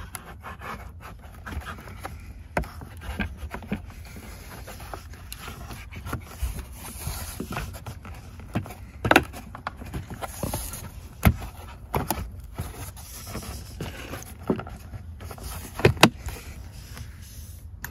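Plastic A-pillar trim panel being worked back into place against the dashboard. Plastic rubs and scrapes throughout, with a scattered series of sharp clicks and knocks, the loudest about halfway through and near the end.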